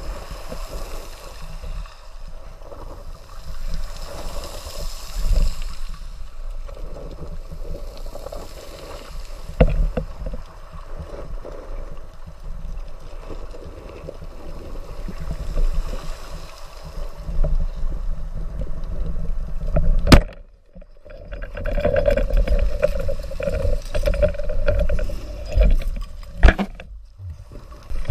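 Muffled underwater sound picked up by a camera in a waterproof housing on a speargun: steady water noise and low rumble as the diver swims, with one sharp click about twenty seconds in.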